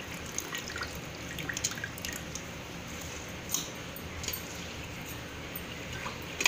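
Small wet pops and light taps over a steady low hiss, as raw rice is pressed down into coconut-milk liquid in an aluminium pressure cooker, with a sharper click at the end.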